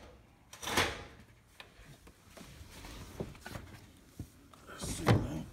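Rustling, handling noises and knocks as someone climbs into a car's driver's seat through the open door, with a louder thump about five seconds in.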